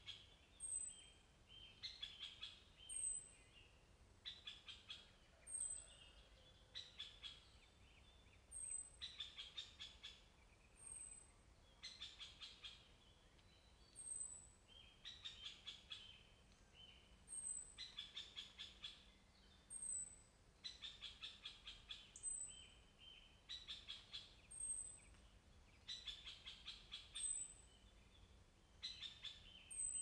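Woodland songbirds singing: short trilled phrases of rapid repeated notes, one every second or two, with a thin, high, falling call note between them.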